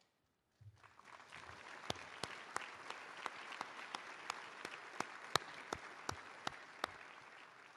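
Dinner audience applauding, with one pair of hands clapping close by at about three claps a second. It starts about a second in and dies away near the end.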